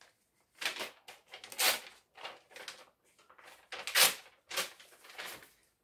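Paper packing list rustling and crinkling in the hands as it is torn apart in two, in a series of short bursts, the loudest about two seconds in and about four seconds in.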